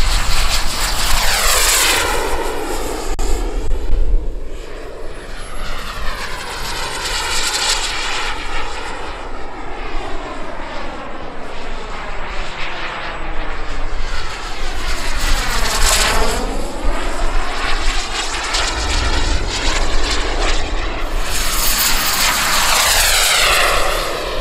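Turbine engine of a radio-controlled model jet, a steady jet whine that swells and fades as the plane makes several passes, the closest one sweeping by about two-thirds of the way through.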